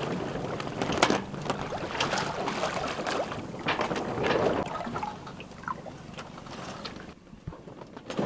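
Water sloshing and slapping against a slow-moving sailboat's hull in a light chop, with irregular splashes that grow quieter near the end.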